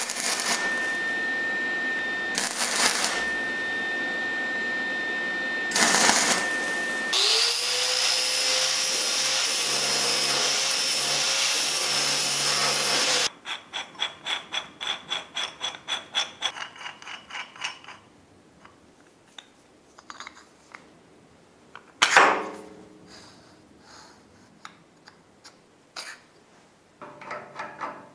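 Metalworking on steel bottle-jack parts. A power tool runs steadily for several seconds with sparks flying. A motor then spins up and runs for about six seconds before cutting off suddenly. After that come steel parts scraped together by hand at about three strokes a second for some five seconds, and then scattered light clicks and one sharper knock.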